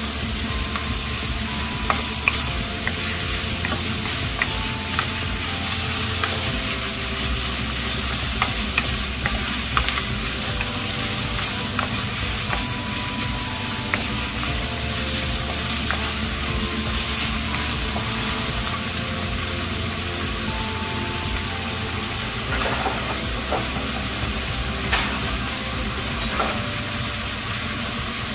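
Food sizzling as it stir-fries in a hot pan, with a steady hiss. Now and then there is a sharp click or scrape of the spatula against the pan.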